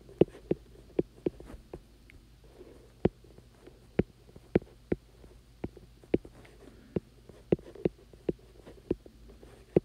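Stylus tapping and clicking on a tablet's glass screen while numbers are handwritten: a string of sharp, irregularly spaced taps over a faint steady low hum.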